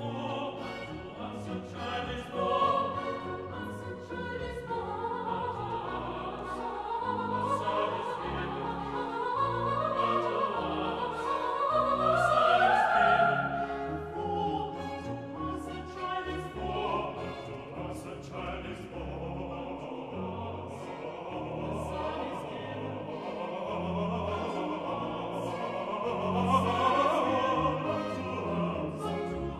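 Classical music: singing voices over an orchestra, with a rising melodic line that peaks loudest about 13 seconds in.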